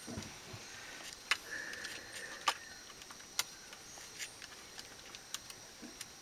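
Quiet tree-canopy ambience with a faint steady high-pitched tone and about half a dozen isolated sharp clicks; no howling is heard.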